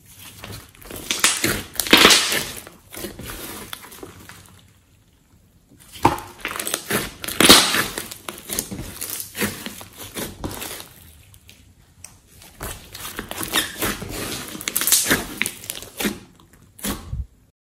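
Hands squeezing, stretching and pressing a large lump of thick clay-mixed slime, giving sticky squelches and crackling pops. It comes in three bouts with short lulls between, and cuts off suddenly near the end.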